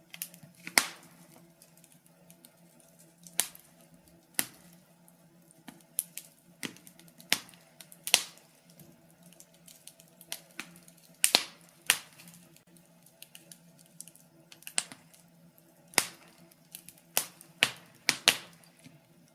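Wood fire burning in a fireplace, crackling with sharp, irregular pops about once a second.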